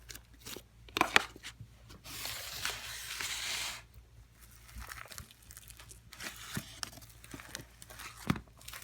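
Slime being handled by hand: a run of small clicks and pops, with a denser crackling stretch lasting just under two seconds about two seconds in.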